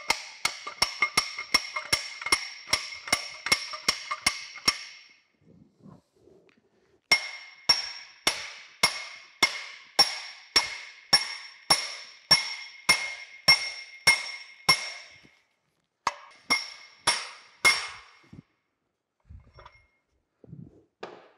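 Hammer blows on a steel driving bar, driving a frozen bronze bushing into a heated cast-iron bore as an interference fit. The strikes are sharp, ringing and metallic, about two to three a second, in three runs with short breaks between them.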